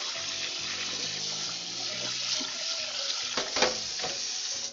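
Kitchen tap running steadily into a stainless steel sink, splashing over pasta in a strainer as it is rinsed under the water, with two short knocks a little past three seconds in.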